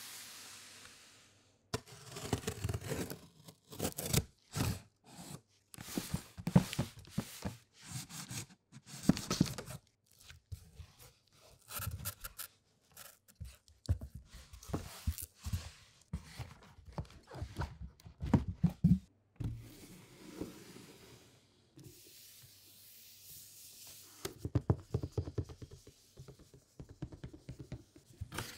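Cardboard box being opened and handled: irregular scraping, tearing and knocking of cardboard and packaging, with a steadier sliding rush for a couple of seconds about three-quarters through as the shoe box inside is lifted out.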